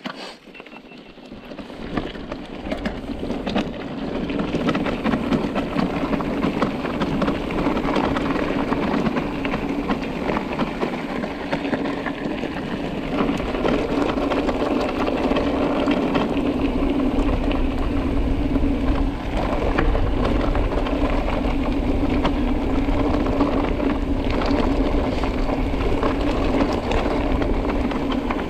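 Mountain bike riding along an off-road trail: tyres rolling over the rough surface, the bike rattling and wind rumbling on the microphone, with a steady hum underneath. The noise is quiet at first and builds over the first few seconds as the bike gets up to speed, then holds steady.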